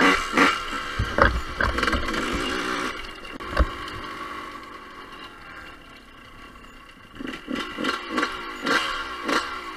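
Two-stroke Yamaha YZ125-based dirt bike engine revving under throttle for the first few seconds, then eased off and falling quieter as the bike rolls on at low speed. A run of short thumps and knocks comes near the end.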